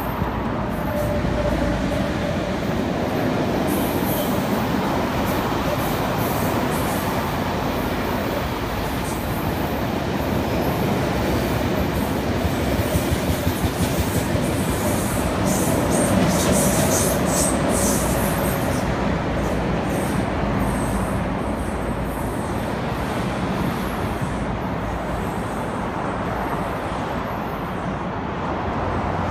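Passenger train of double-deck coaches running past on the line just below, a steady rumble of steel wheels on rail. About halfway through comes a quick run of clickety-clack from the wheels.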